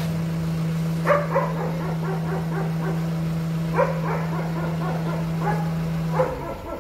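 Dogs barking several times over the steady low hum of the boom lift's motor, which stops about six seconds in.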